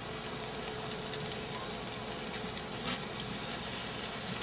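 Steady sizzling hiss of artichokes on a hot grill grate over open flame as an oily garlic and soy sauce baste is spooned onto them.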